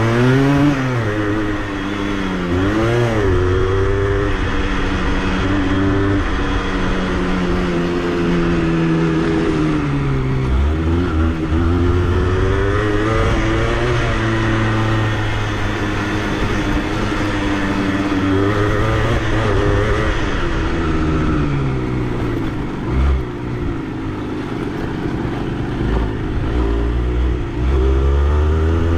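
Honda CRM80's two-stroke single-cylinder engine under way, its pitch rising and falling again and again as the throttle is worked, with low rumbling at times.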